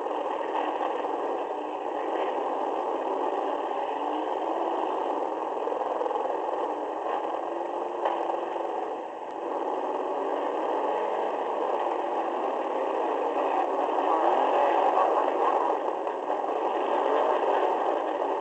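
Demolition derby car's engine running with clatter and rattling, heard from inside the car and sounding thin, with no deep bass. A brief sharp knock comes about eight seconds in.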